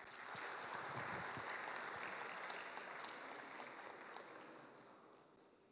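Audience applauding, starting at once and dying away over about five seconds.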